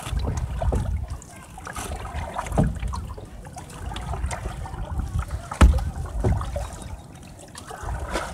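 Canoe moving on a lake: wind rumbling on the microphone, water trickling and splashing along the hull, and a few sharp knocks, the loudest a little past halfway through.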